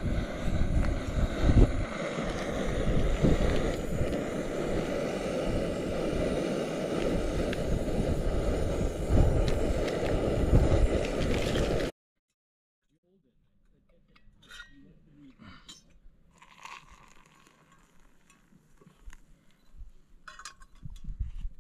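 A steady rushing roar with low buffeting thumps, which cuts off suddenly about twelve seconds in. Then faint crinkles and light clinks as a drink sachet is poured into a cup and stirred.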